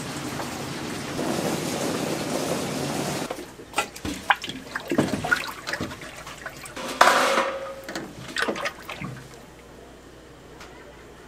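A steady rush of water-like noise that stops about three seconds in, followed by scattered clatters and knocks of kitchen utensils and dishes. The loudest is one sharp clatter about seven seconds in.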